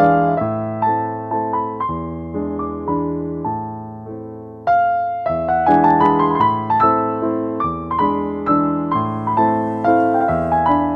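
Solo piano music playing a flowing melody of struck notes. It eases off for a couple of seconds, then comes back louder a little before the middle.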